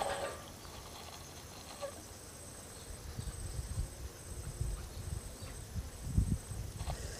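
Spinning reel being cranked to retrieve the line, heard as an irregular low rumble of handling noise starting about three seconds in and running until near the end.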